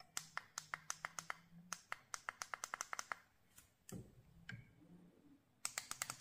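Quick run of small sharp clicks, about seven a second, then a dull thump, then another run of clicks near the end.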